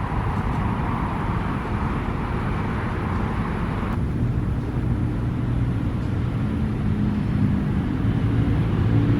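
Steady low rumble of distant traffic and engines. A hiss cuts off about four seconds in, leaving a low engine-like drone.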